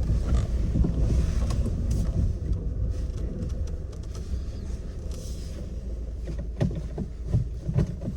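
Inside the cabin of a Suzuki Swift Sport ZC31S on the move: steady engine and road rumble from its 1.6-litre four-cylinder. Several short knocks come about six to eight seconds in.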